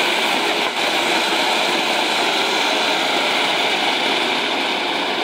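A ground firework fountain (flower pot) spraying sparks with a steady hiss.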